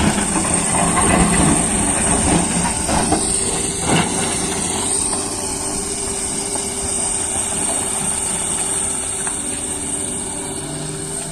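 Doosan excavator running, its engine and hydraulics giving a steady drone with a constant high whine. Several knocks and rattles in the first four seconds, then steadier running.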